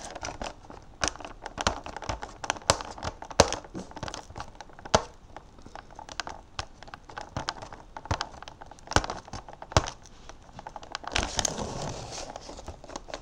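Clear plastic toy packaging crinkling and crackling in the hands as it is worked open, with many scattered sharp crackles and a denser burst of crinkling about eleven seconds in.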